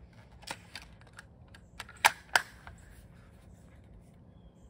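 A scatter of small mechanical clicks and clacks from a CYMA VSR-10 airsoft bolt-action rifle being handled and readied to shoot, with two sharper clacks close together about two seconds in.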